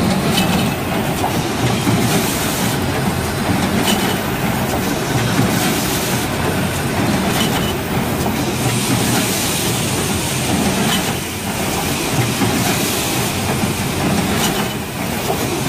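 Automatic toilet-roll bundling and packing machine running, a loud steady mechanical clatter that repeats in an even rhythm as its pushers and conveyors cycle.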